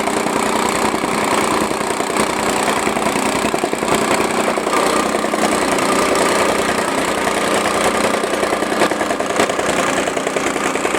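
Engine of a tamping rammer (jumping jack compactor) running steadily, with the rapid repeated pounding of its foot compacting fill soil.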